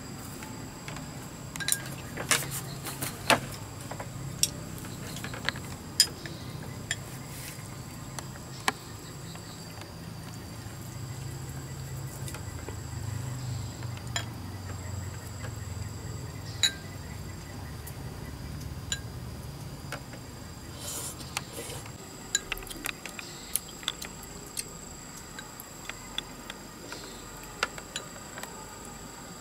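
Chopsticks clinking and tapping against ceramic bowls while food is served and eaten, in irregular sharp clicks a second or two apart.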